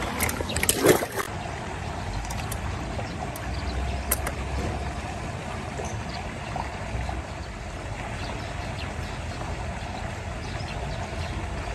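A few sharp splashes or knocks in the first second, then a steady low rumble with a faint trickling water hiss, the outdoor background of a fishing pond.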